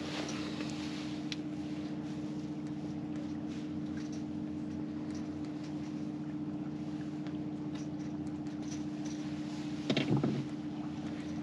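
Boat's outboard motor running steadily at trolling speed, an even hum, with a brief louder noise about ten seconds in.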